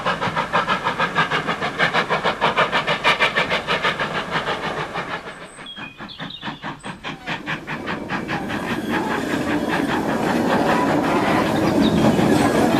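Archive recording of a steam locomotive at work, its exhaust beating quickly and evenly. The beats fade about halfway through, pick up again, and then the rumble and clatter of the train on the rails swell toward the end.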